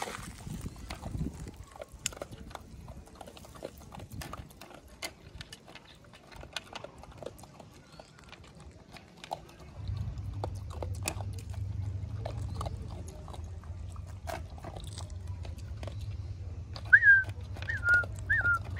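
Stray dog feeding from a plastic bowl: irregular clicks and smacks of its mouth and teeth in the bowl. A steady low hum comes in about halfway through, and a few short high chirps sound near the end.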